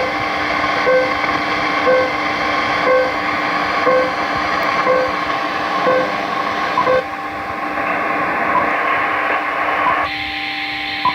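Shortwave receiver audio of an unidentified HF signal: steady static with several steady tones and a short beep about once a second. The beeps stop about seven seconds in, and the tones shift again near ten seconds.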